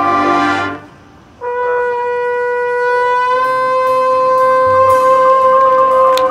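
Marching band brass playing: a chord breaks off under a second in, and after a short pause the band holds one long final note, lower parts joining partway through and the sound growing louder before it cuts off together.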